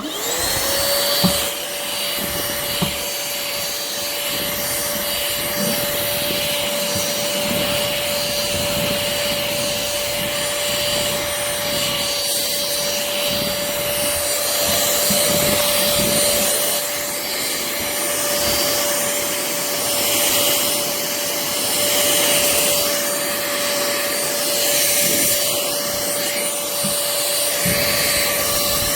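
Pemacom cordless handheld vacuum switching on, its motor spinning up in a moment to a steady high whine over a rush of air. It keeps running steadily, with a couple of knocks in the first few seconds and irregular rubbing noises.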